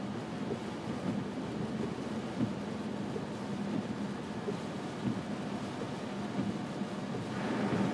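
Car driving through snow: steady road and engine noise with a low hum and occasional light knocks. A hiss swells briefly near the end.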